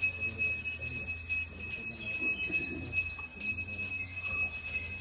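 Ritual hand bell rung rapidly and without pause, a steady high ringing.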